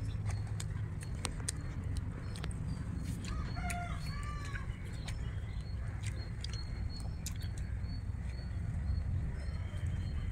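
Chickens calling, a short run of arched clucks about four seconds in, over a steady low rumble, with scattered small clicks of hand-eating from banana leaves.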